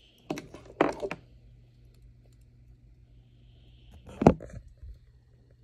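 Handling noise: a few sharp clicks and taps in the first second, a louder knock about four seconds in and some fainter taps after it, over a faint steady hum.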